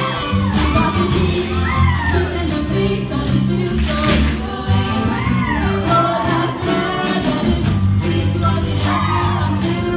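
A stage musical number: the cast singing over an instrumental accompaniment with a steady bass line.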